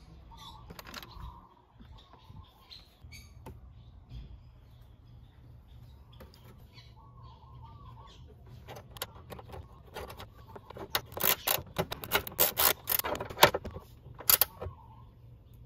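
A 10 mm gear wrench ratcheting on a trim-panel bolt: scattered clicks that build into a quick run of sharp metallic clicks in the second half, loudest just before the end. Birds chirp faintly now and then.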